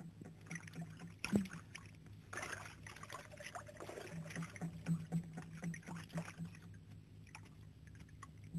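Water splashing and trickling as someone bathes and moves in a pool, in irregular small splashes with a sharper one about a second and a half in. A low steady hum runs underneath.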